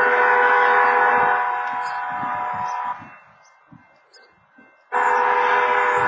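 Railroad-crossing wayside horn sounding a train-horn warning: one blast of about three seconds, a two-second gap, then another blast beginning about five seconds in. It is sounding with no train present, set off by a false activation of the crossing's warning equipment.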